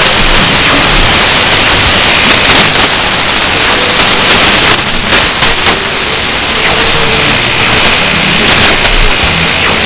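Shortwave receiver output tuned to 4.810 MHz in upper sideband: loud, steady band static and hiss, with faint snatches of a weak, unidentified signal barely showing under the noise.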